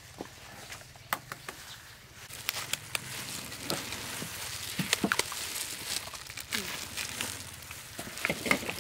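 Scattered light clicks and taps of hands and food working in steel bowls and trays while chicken is coated in flour and egg. A steady hiss sits under them and grows louder about a third of the way in.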